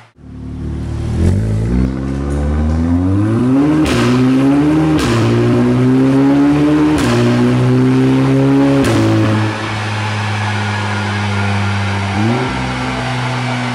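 Audi S3's turbocharged 2.0-litre four-cylinder through a non-resonated Milltek Sport cat-back exhaust, accelerating on a dynamometer. The engine note climbs and drops back several times as it shifts up through the gears, with a sharp crack at each shift. About ten seconds in it settles to a steady drone.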